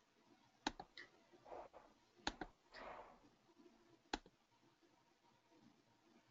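Near silence broken by four faint, sharp clicks spread over the first four seconds, with a couple of soft rustles between them.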